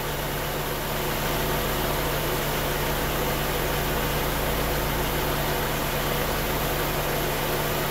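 The Honda B18B1 four-cylinder engine idling steadily, with the A/C compressor engaged. It is a steady low hum with an even hiss above it.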